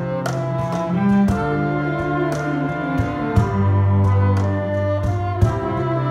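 Small ensemble of cellos, violin and flute playing a hymn arrangement, with held notes and chords changing about once a second.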